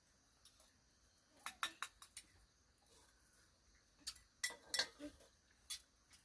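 Eating utensils clinking against dishes: a quick run of sharp clinks about a second and a half in, another run around four to five seconds, and a single clink near the end.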